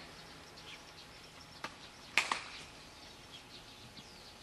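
A bat hitting a softball: one sharp crack a little over two seconds in, the loudest sound, with a quick smaller knock right after it. Faint bird chirps in the background.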